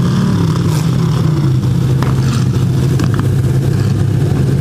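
Demolition derby car engines running loud and steady, with a few brief knocks about two to three seconds in.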